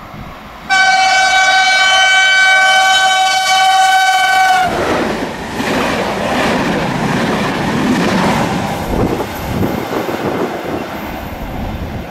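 Electric train's horn sounding one long, loud, steady blast of about four seconds as two trains cross. It cuts off into the rumble and wheel clatter of a train rolling past.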